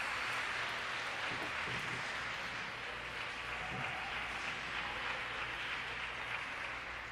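Audience applauding: a steady patter of clapping that slowly fades.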